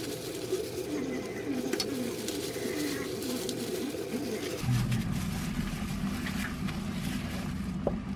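Thin plastic food gloves crinkling and lettuce leaves rustling as hands fold lettuce wraps, with scattered sharp crackles. Under it runs a low, wavering background sound that changes abruptly about four and a half seconds in.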